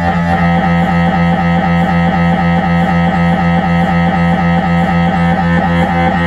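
Siemens Magnetom Avanto 1.5 T MRI scanner running a pulse sequence: a loud, steady, pitched buzz from the gradient coils that repeats in a fast, even pattern.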